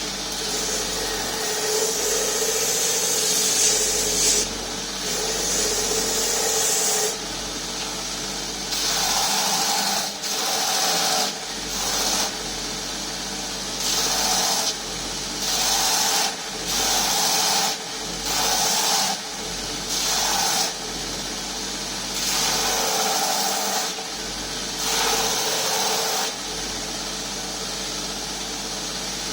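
A grinding machine runs steadily while a handle blank is held against it freehand for rough shaping, in about a dozen short passes of one to three seconds each, each contact adding a louder grinding hiss over the motor's steady hum.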